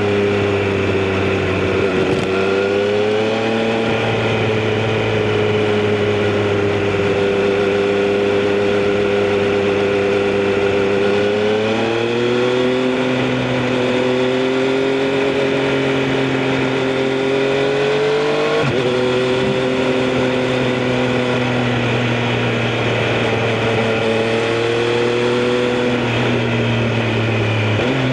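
Triumph Street Triple RS 765cc three-cylinder engine running under way at fairly steady revs, its pitch rising gently a few times, stepping up about halfway through and breaking briefly about two-thirds of the way in, over steady wind and road noise.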